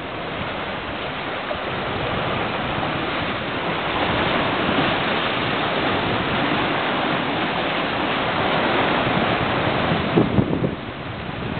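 Steady rush of ocean surf washing against a rocky shore, mixed with wind on the microphone, with a few louder bumps near the end.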